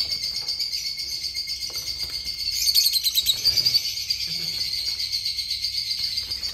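Many caged lovebirds chattering together in a dense, steady high-pitched twitter, with a louder flurry of calls about three seconds in.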